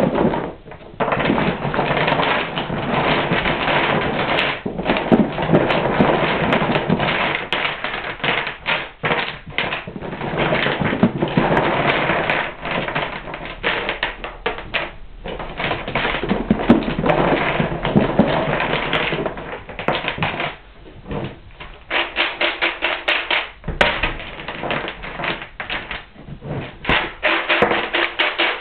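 Small oiled wooden building blocks clattering and clicking against each other and against a plywood board as they are set out by hand in rows. Near the end come quick, even runs of clicks as the blocks are jostled into place.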